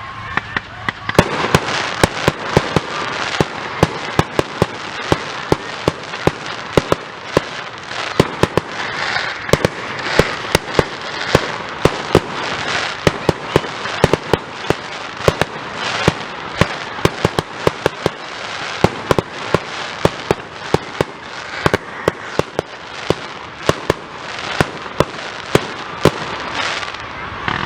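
Fireworks display: a rapid, irregular barrage of loud bangs and crackles, several a second, over a continuous hiss and rumble of further bursts.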